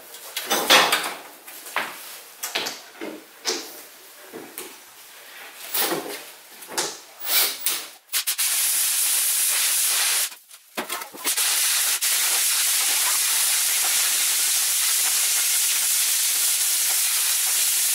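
Scattered clicks and knocks as the flexible rods of a rotary chimney cleaner are handled and joined. About eight seconds in, a steady hiss sets in as a cordless drill spins the rotary brush inside the stovepipe, its bristles scrubbing soot and creosote from the pipe walls. The hiss breaks off briefly around ten seconds and then runs on.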